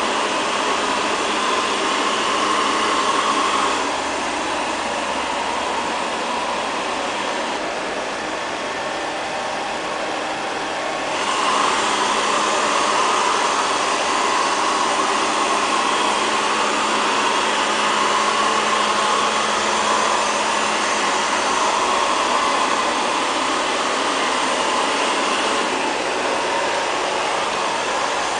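LL-306 (X500) robot vacuum cleaner running steadily. Its motor noise drops a little about four seconds in and comes back up at about eleven seconds.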